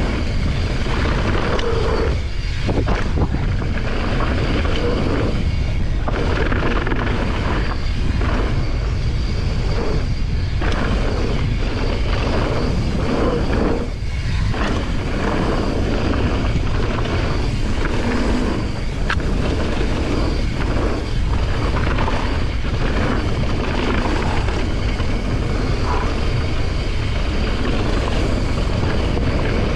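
Mountain bike descending a gravel and dirt trail: steady wind rush on the action camera's microphone over rolling tyre rumble, with frequent short knocks and rattles as the bike goes over bumps.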